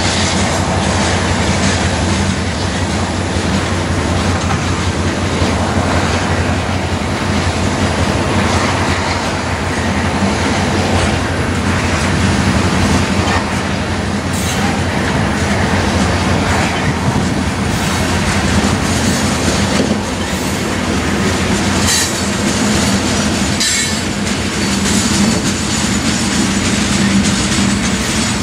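Loaded coal cars of a long freight train rolling past, with a steady rumble of steel wheels on the rails.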